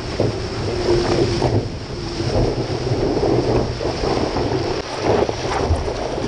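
Wind buffeting the microphone of an action camera mounted on a stand-up paddleboard's nose, mixed with the rush and spray of water as the board rides a breaking wave. The noise is loud and gusty, pulsing unevenly.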